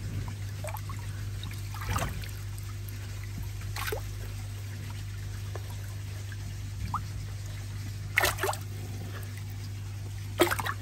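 Pond water trickling and splashing in a few short bursts as a lively koi moves in a shallow measuring bowl, the louder splashes coming near the end, over a steady low hum.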